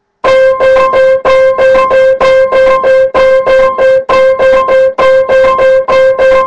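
Piano playing one note over and over, struck evenly about three times a second and loud. This is the steady three-beat count of a three-against-two rhythm demonstration.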